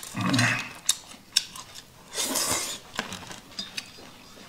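Eating with chopsticks from a plastic self-heating hotpot tray: light clicks of chopsticks and dishes, and a slurp of noodles about two seconds in.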